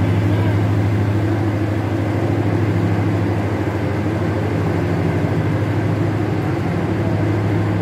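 Steady low drone of a parked passenger train's diesel engine running at idle: a deep, unchanging hum with a few higher overtones.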